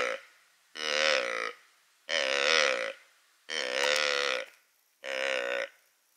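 Hunter's fallow deer call, a corrugated tube blown by mouth, imitating a rutting fallow buck's croak. It gives a run of croaks with a wavering pitch: the end of one at the start, then four full croaks of about a second each, roughly one every 1.4 s.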